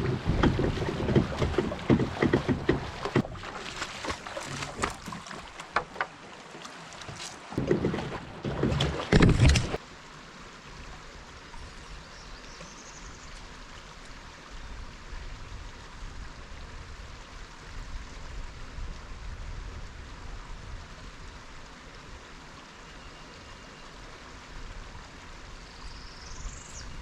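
Water sloshing and knocking around a kayak on a river, loud and uneven with many sharp knocks, for about the first ten seconds, then suddenly dropping to a steady, even rush of moving water. A short rising whistle near the end.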